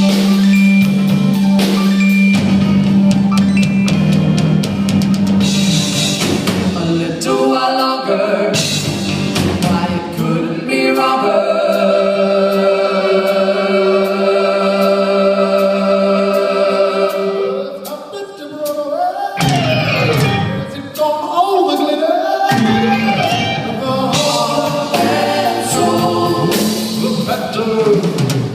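A live rock band playing with drum kit and singing. Drums beat steadily at first, then a long held chord rings for several seconds, followed by gliding pitches before the drums come back in.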